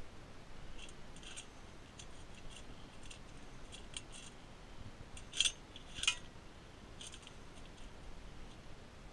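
Stones and a metal digging tool clinking and scraping in rocky wet sand: scattered short clicks, the two loudest about five and a half and six seconds in.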